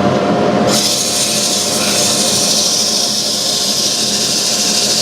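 Wood lathe and an electric drill fitted with an 80-grit sanding pad running, the pad sanding a turning wooden spindle. A steady motor hum runs under a loud gritty hiss that rises about a second in and then holds steady.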